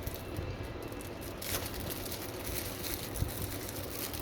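Plastic packaging of an ignition coil plug kit rustling and crinkling as it is handled, in irregular bursts with a louder stretch about a second and a half in.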